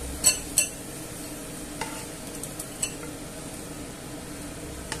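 Hot fried chorizo and pepper filling, still in its olive oil, sliding from a frying pan into a glass bowl of beaten egg, with two sharp clinks of metal near the start and a couple of lighter ones later. A steady hum from a kitchen extractor fan runs underneath.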